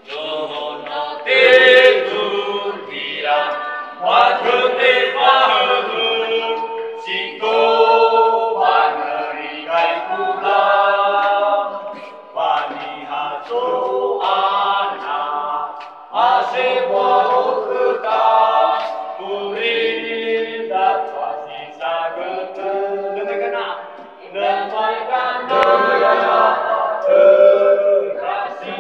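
Group of voices singing unaccompanied in the Nias language, phrase after phrase with short breaks between them.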